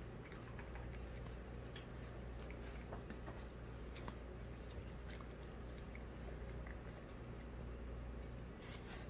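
A greyhound eating soft wet food from a paper plate: scattered small wet clicks and smacks of its mouth and tongue, over a steady low hum.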